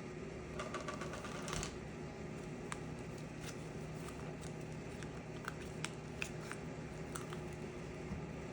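Light clicks and taps, a quick cluster in the first second and a half and then scattered single ticks, over a steady low hum.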